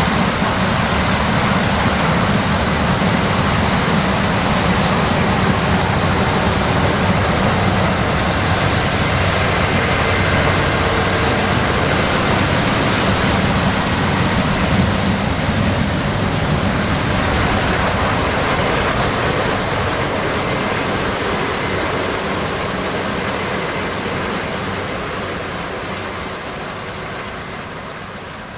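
Large farm machine running steadily, a dense even engine-and-machinery noise with no distinct beats, fading out over the last several seconds.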